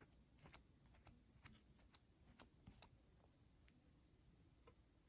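Near silence with faint, scattered small clicks and ticks, most of them in the first three seconds: hands working bare speaker wire into its new connectors.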